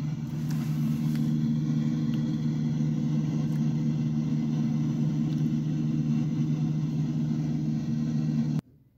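A small high-wing training plane's engine and propeller drone steadily in the cabin during flight, played back through a television. It cuts off suddenly just before the end.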